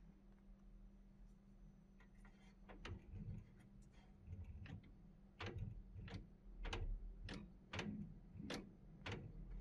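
A series of short, sharp clicks, about one every 0.6 s, starting almost three seconds in, as the laser cutter's X-axis gantry is worked by hand. The clicks sound over a faint steady hum.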